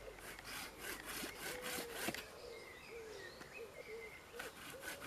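Hand pruning saw cutting through wood in rapid back-and-forth strokes. The strokes pause for a couple of seconds in the middle and start again near the end.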